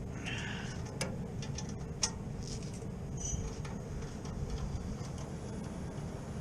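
A few sharp metallic clicks and scattered lighter ticks, as from hand tools working on refrigeration valves or fittings, over a steady low machine hum.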